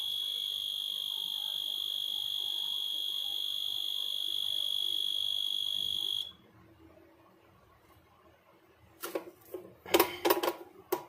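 Sealing machine's beeper sounding one steady high-pitched beep for about six seconds, then stopping abruptly. The beep signals the heat-seal-and-cut cycle: the handle is held down until it ends. About nine seconds in there is a quick run of sharp clicks and crackles.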